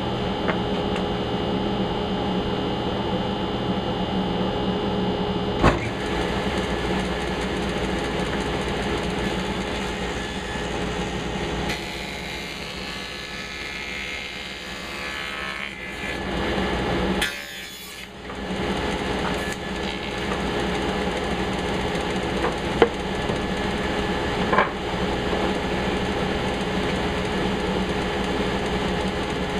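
A woodworking shop machine running steadily, broken by a few sharp knocks about six seconds in and twice more near the end.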